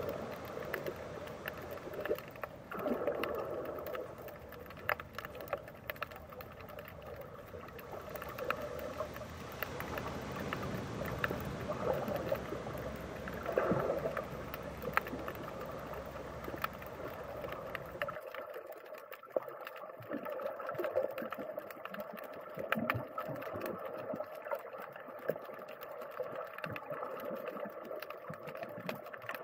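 Underwater sound picked up by a submerged camera: a muffled wash of water noise with a steady hum and many scattered clicks and crackles. About two-thirds of the way through, the deep rumble and the hiss drop out abruptly.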